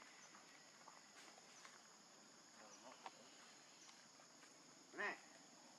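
Steady faint high hum of insects, with one short high call from a monkey about five seconds in.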